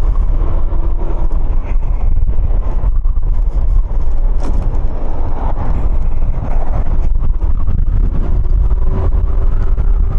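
Wind rumbling over a helmet-mounted microphone while riding a Kymco 125cc motor scooter, with the scooter's engine humming steadily underneath.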